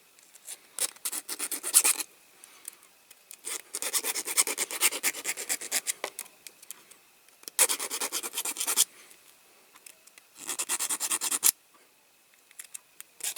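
Small hand file rasping down the riveted end of a die-cast toy car's metal wheel axle to free the wheel. It goes in four bursts of quick short strokes with brief pauses between them.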